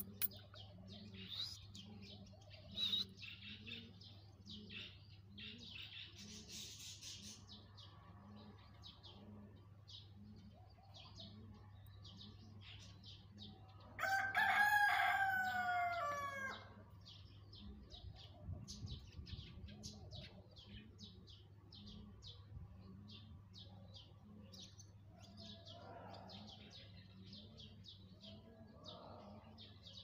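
Male Indian peafowl giving one loud, slightly falling call lasting about two and a half seconds, about halfway through, over faint chirping of small birds.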